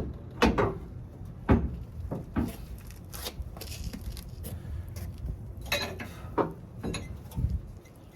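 Irregular knocks and clunks of metal parts being handled and set in place while fitting a new rear leaf spring under a pickup truck, about eight in all, the loudest near the start and about a second and a half in.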